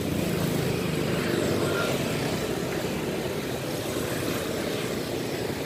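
Motorcycle engine running steadily on the move, with an even rush of road and wind noise.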